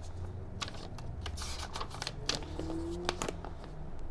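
Scattered light clicks and taps of parts being handled on a benchtop drill press while its speed is set.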